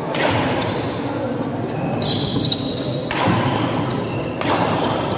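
Badminton rackets striking a shuttlecock several times during a fast doubles rally, each hit a sharp crack, over a steady murmur of crowd chatter.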